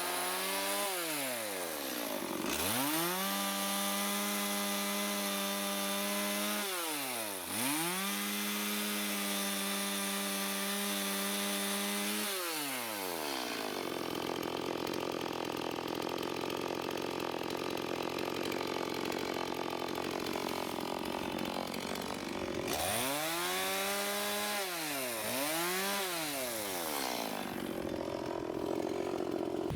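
Two-stroke chainsaw limbing a felled eucalyptus, running at high revs and dropping off and revving back up several times between cuts. Around the middle its note falls and turns rougher for several seconds, as when cutting through a branch.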